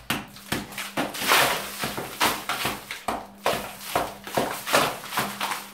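Hand hammer chipping at a wall: irregular sharp blows, about two or three a second, knocking out plaster and rubble.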